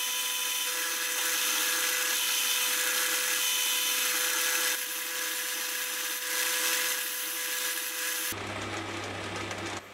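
AL-250G geared-head metal lathe running under a turning cut on the end of a metal workpiece: a steady hiss with a steady whine. About eight seconds in the sound changes to a lower hum as the spinning part is sanded by hand with abrasive cloth.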